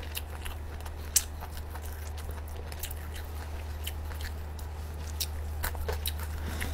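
Close-miked mouth sounds of someone chewing fermented pork roll (nem chua): soft, wet clicks and smacks, with one sharper click about a second in.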